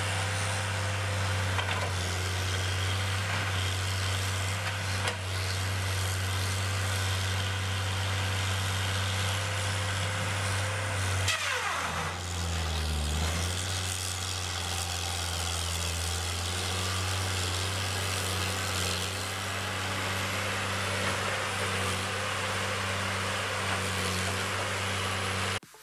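An engine running steadily at a constant speed, with a falling sweep in pitch about eleven seconds in before it settles back to the same steady note.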